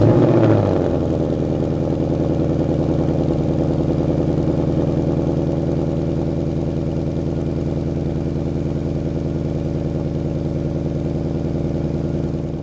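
Ford Mustang GT's 5.0-litre V8 cold-starting through its factory Active Exhaust in Normal mode. The engine catches, flares up in revs for about a second, then settles into a steady fast cold idle.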